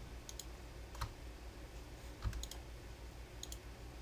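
Faint computer mouse and keyboard clicks, a few single clicks and quick pairs, as objects are deselected with Shift and right-click.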